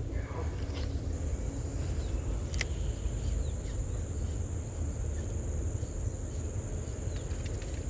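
Steady high-pitched insect drone over a low rumble of wind, with a couple of isolated sharp clicks.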